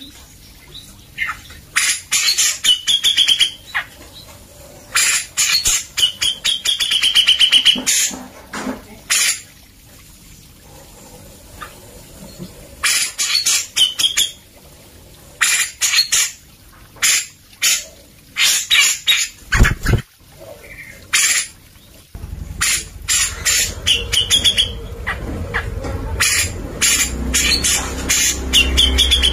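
Cucak jenggot (grey-cheeked bulbul) calling loudly and vigorously in repeated harsh, chattering bursts with short whistled notes, one burst every second or two, with a short pause about a third of the way through. A low thump comes about two-thirds in, and a low rumble runs under the calls near the end.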